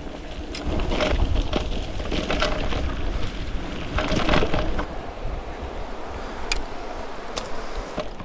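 Wind buffeting the microphone of a camera riding on a bicycle, a heavy uneven rumble, with a few sharp clicks and rattles.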